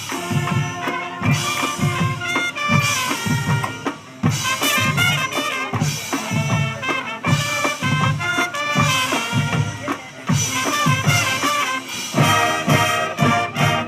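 High school marching band playing: brass (trumpets, trombones) holding sustained notes over a steady drumline beat, briefly dropping back about four seconds in.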